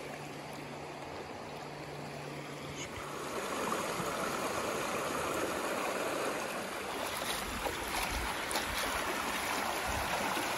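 Creek water rushing and splashing over rocks in a steady stream, getting louder about three seconds in.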